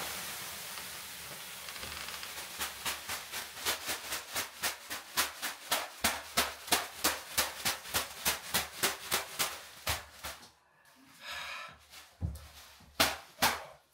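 A bathhouse venik, a leafy bath broom, slapping on a body in the steam room: a fast, even run of sharp slaps, about three a second. After a short pause near the end come a few more slaps.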